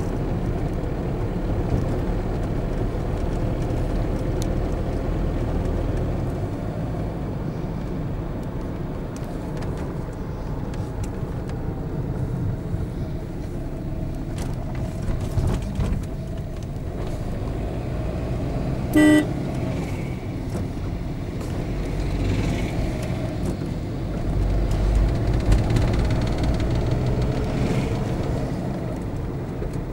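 Road noise heard inside a moving car: a steady low rumble of engine and tyres. One short vehicle-horn toot sounds about two-thirds of the way through.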